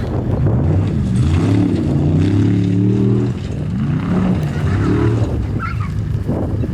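Formula Offroad hillclimb car's engine revving hard: the pitch climbs and holds, drops off sharply about three seconds in, then rises again in further bursts of throttle.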